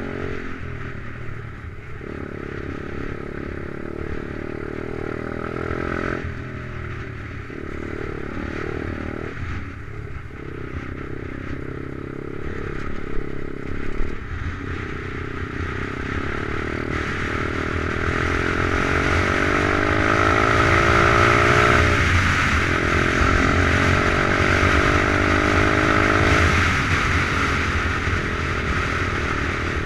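Stomp pit bike's 125cc Lifan single-cylinder four-stroke engine, a new engine being run in, pulling along a rough dirt track, its revs rising and falling with the throttle. A couple of sharp knocks about halfway through; the engine grows louder after that, eases off briefly about two-thirds through, then picks up again.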